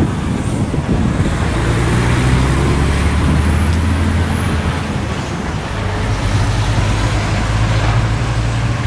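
A motor vehicle engine running as a low, steady hum that eases off briefly about five seconds in.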